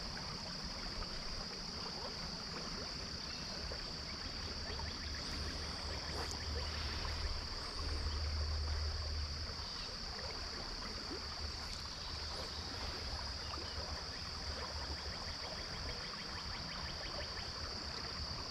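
Shallow river riffle running over stones, with a steady high-pitched insect drone over it. A low rumble comes in about four seconds in and is strongest around eight to nine seconds.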